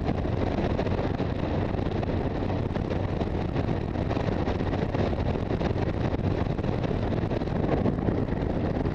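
Yamaha FJR1300 sport-touring motorcycle cruising at road speed: steady wind rushing over the helmet camera's microphone, with the engine and road noise beneath it.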